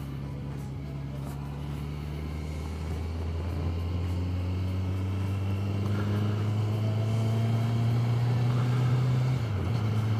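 Honda CBR1100XX Super Blackbird's inline-four engine pulling under acceleration. Its note climbs slowly in pitch and gets louder, then drops suddenly near the end as the bike changes up a gear.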